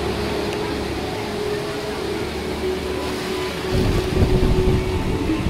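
A vehicle running steadily with a humming tone. About four seconds in it grows louder and rougher with a low rumble.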